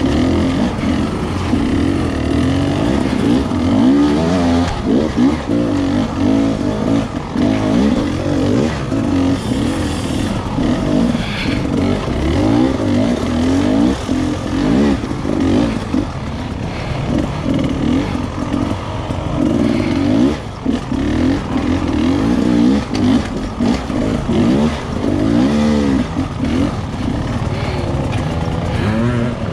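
Off-road dirt bike engine revving up and down again and again as it climbs slowly over a rocky, boulder-strewn trail, with frequent knocks mixed in.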